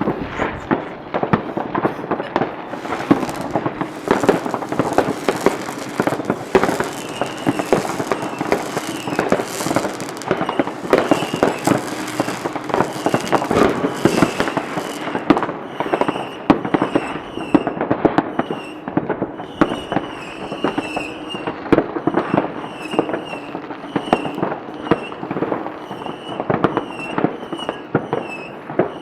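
Fireworks display: a dense, continuous barrage of bangs and crackles. In the second half, short high-pitched whistles recur about once or twice a second over the bangs.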